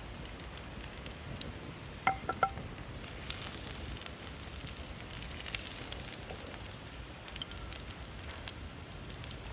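Crushed garlic sizzling and crackling in hot oil in a pan for a tempering. Two sharp metallic clinks about two seconds in, like a spoon striking the pan.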